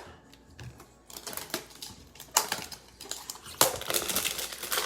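Plastic wrapper of a trading-card hanger pack crinkling and crackling as it is torn open and handled, with irregular sharp clicks. Sparse at first, denser and louder after about three and a half seconds.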